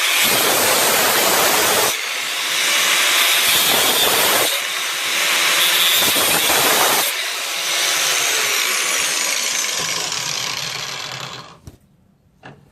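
Cutoff wheel grinding through a metal exhaust pipe in several spells. Near the end the tool is let off and the wheel winds down, its pitch falling until it stops.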